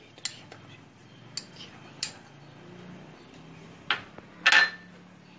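A steel spoon clinking lightly against a small ceramic bowl, a few scattered clicks, then a louder short clatter about four and a half seconds in.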